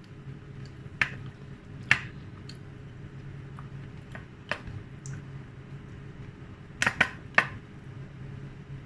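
Eating sounds of a person feeding close to the microphone: scattered sharp clicks and wet smacks, with a tight cluster of three about two-thirds of the way through, over a faint steady hum.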